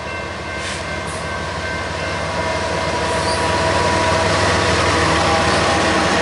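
Union Pacific diesel freight locomotives passing close by, their engines running under power and the wheels rolling on the rails. The rumble grows steadily louder as the lead units go past.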